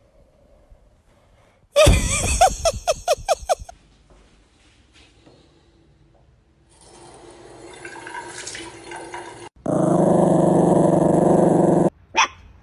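A dog growling in a quick pulsing run of about eight pulses. Then water gushes hard from a bathroom tap for about two seconds and stops suddenly. Near the end come a puppy's short barks.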